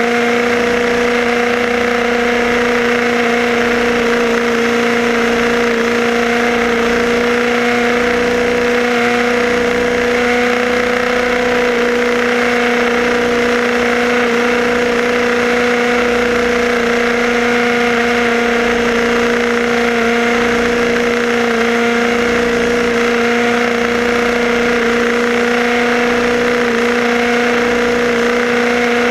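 HPI Baja 5B SS 1/5-scale RC buggy's two-stroke petrol engine running under steady throttle, heard close up from on board. It gives a constant high buzzing note that holds one pitch.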